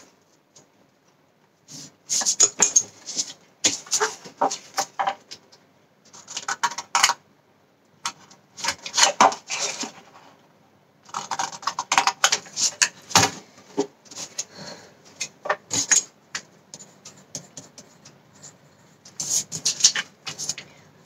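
Cardstock and paper being handled and cut on a craft table: repeated bursts of crisp rustling and sharp clicks, a few seconds each, with short pauses between.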